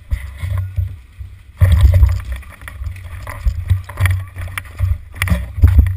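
Low, uneven rumbling and buffeting from a GoPro mounted on a paintball marker as it is carried on the move, with scattered knocks and clicks.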